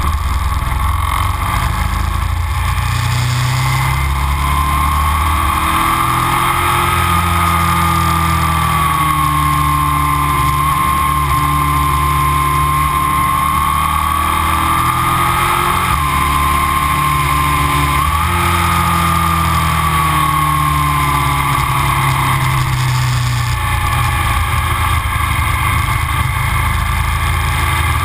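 Aprilia RSV Mille 1000's V-twin with Arrow silencers running under way, heard from on board. The engine note rises and falls gently with the riding, with a short break in pitch a little past the middle.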